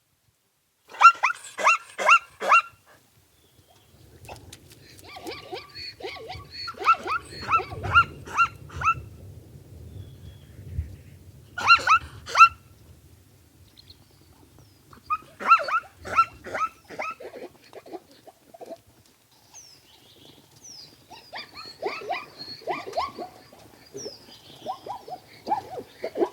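A dog yapping: groups of quick, high-pitched yelps, several to a group, with short pauses between groups.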